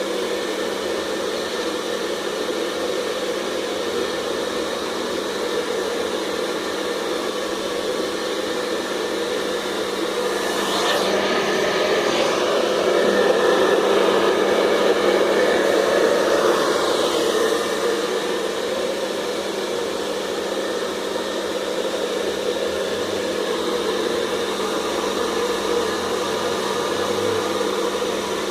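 Hair dryer running steadily, a rushing blow of air over a faint motor hum, growing somewhat louder for several seconds in the middle.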